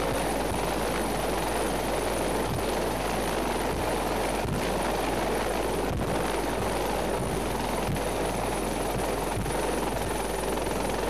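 Military rescue helicopter's rotor and engine noise, a steady drone.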